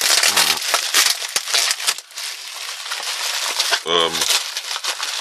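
Plastic bubble wrap crinkling and crackling as it is squeezed and picked at by hand, with many small sharp crackles. A short vocal grunt comes about four seconds in.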